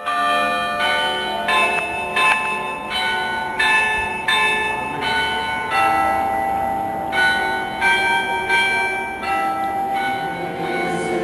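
Church bells ringing a slow tune: one bell struck about every three quarters of a second, each at a different pitch and ringing on under the next.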